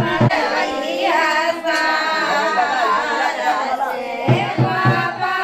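A woman singing a melodic song with musical backing; about four seconds in, a fast, even drum beat comes in under the voice.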